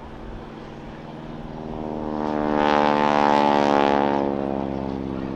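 Propeller biplane's radial engine passing close by, a steady multi-toned drone that swells to its loudest about three seconds in and then fades as it moves away.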